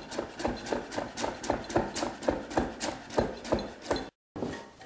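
Chef's knife slicing red cabbage thinly on a wooden cutting board: quick, even knocks of the blade against the board, about four or five a second, breaking off abruptly near the end.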